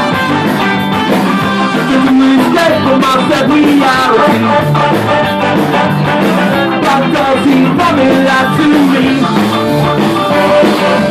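A live ska band playing: singing over guitars and drums with a steady beat.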